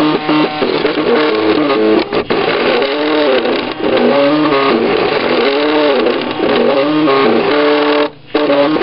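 MakerBot Cupcake CNC 3D printer's stepper motors singing in changing pitches as the print head and build platform move, the tones sliding up and down with each acceleration and slowdown. They stop briefly a little after eight seconds in.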